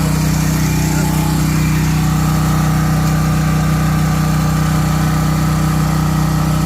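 Small portable generator engine running steadily at a constant speed, an even low drone.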